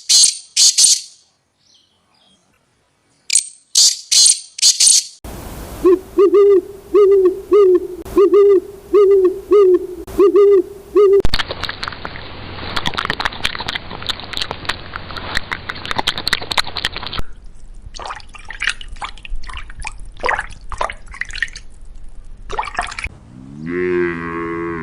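A run of different animal clips. Short hissing bursts come first, then a pitched hooting call repeated about eight times in quick, even succession. A stretch of steady rushing noise and scattered clicks follows, and near the end a low call begins that rises in pitch.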